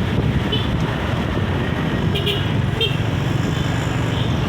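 Steady low rumble of bus traffic, with a few brief, faint high toots in the middle.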